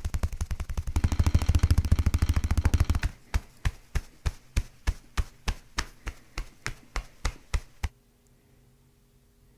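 Handheld percussion instrument working on the body: rapid mechanical tapping at about ten strokes a second that grows louder about a second in. About three seconds in it changes to slower single taps, about three a second, which stop about eight seconds in.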